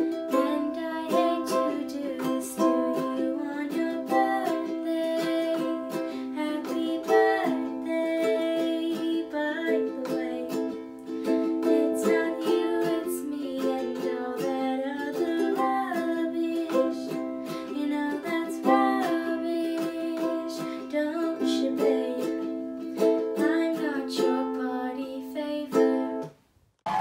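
Ukulele strumming chords, with a young woman singing a melody over it; the playing stops abruptly near the end.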